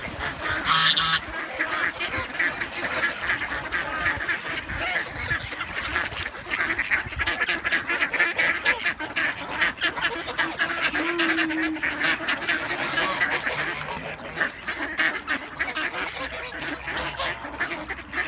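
A large flock of mallard ducks quacking and chattering all at once, a dense, continuous din of overlapping calls.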